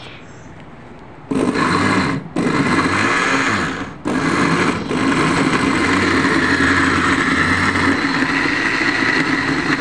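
Electric blender motor running, blending chunks of peeled plum with sugar and a little water. It starts about a second in, cuts out briefly twice, then runs steadily.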